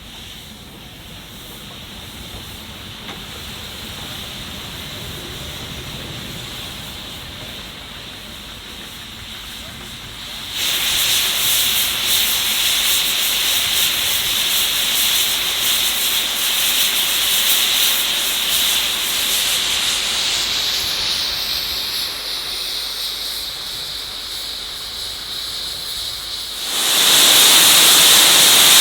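An LMS Stanier Black 5 steam locomotive comes in with a low rumble that grows louder. About ten seconds in, loud steam hissing starts abruptly, and near the end it jumps louder again.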